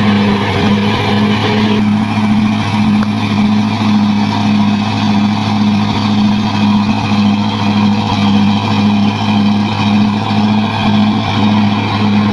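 Heavy bulldozer's diesel engine running steadily under load, with a regular low throb.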